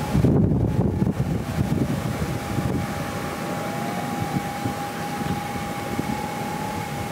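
Distant jet engine whine holding a steady pitch over a low rumble, with wind buffeting the microphone in the first second or so.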